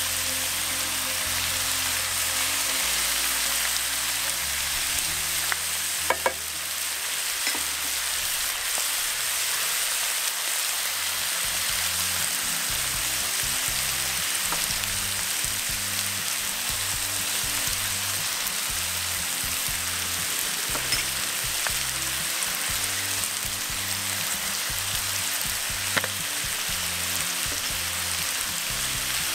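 Chicken livers and sliced onions sizzling steadily in a hot cast-iron pan, with a sharp click about six seconds in and another near the end.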